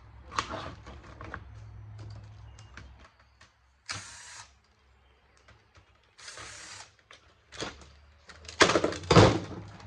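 Clicks and clatter of metal and plastic parts being handled and pried while a stereo receiver is dismantled for scrap. Two short scraping hisses come in the middle, and a louder clunk follows near the end.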